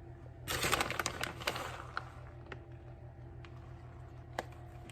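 Crinkling and rustling of a plastic bag of shredded cheese being handled, a dense run of crackly clicks about half a second in, then scattered light clicks and taps. A steady low hum runs underneath.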